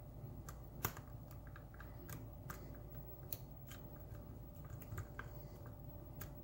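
Faint, irregular clicks and ticks of a metal hook pick working the pin tumblers of a brass challenge lock cylinder held under a tension wrench, during single-pin picking; one sharper click about a second in.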